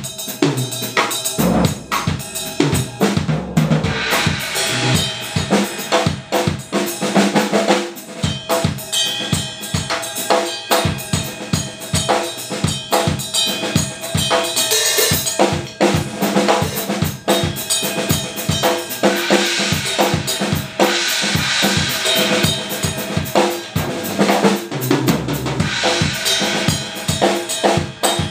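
Close-miked drum kit played continuously in a Latin-style groove: a steady stream of kick and snare hits with cymbals coming forward in a couple of brighter stretches around the middle and about two-thirds through.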